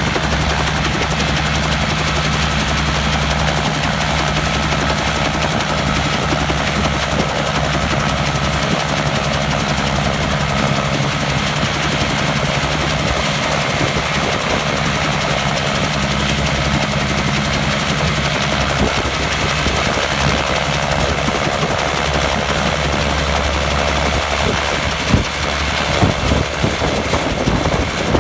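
Bell 47 helicopter's air-cooled piston engine running steadily at ground idle, with the main rotor turning.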